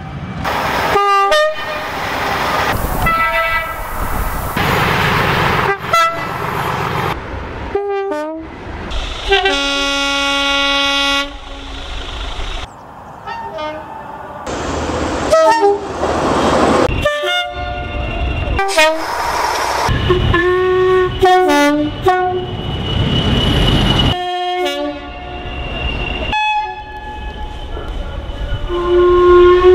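British railway locomotive horns and whistles sounding one after another in a string of separate clips. Most are short blasts that step between pitches, with one long steady horn note about ten seconds in, and train running noise in between.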